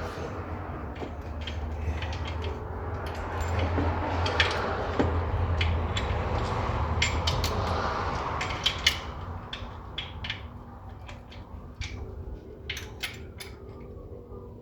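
Irregular metal clicks and clinks of a ratchet wrench and long extension working on bolts, over a low hum that fades about nine seconds in.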